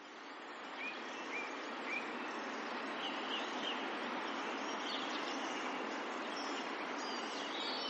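Outdoor park ambience fading in: a steady wash of background noise with small birds chirping briefly now and then, most often in the first few seconds.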